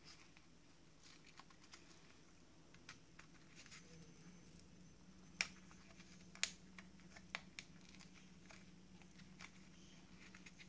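Faint rustling and small ticks of a paper tag and napkin being handled, with a few sharper clicks around the middle.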